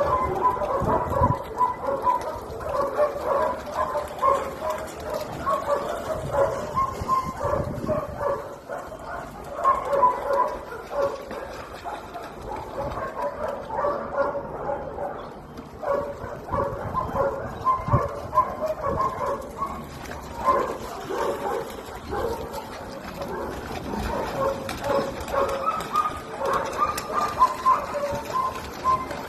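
Several shelter dogs barking and yipping over one another, without a break.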